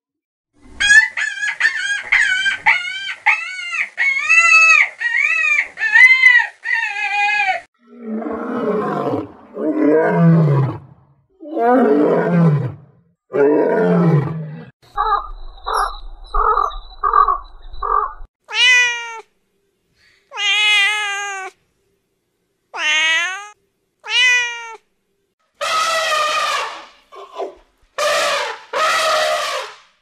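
A run of different animal calls one after another: first a rapid series of short high calls, then four descending lion roars, six short evenly spaced calls from a white stork, several rising cat meows, and loud elephant trumpeting near the end.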